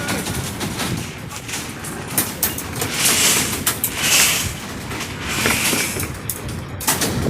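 Construction site noise: irregular sharp knocks and clatter over a steady rushing hiss that swells and fades.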